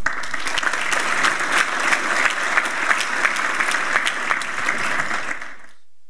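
Audience applauding, a dense patter of many hands clapping that cuts off suddenly near the end.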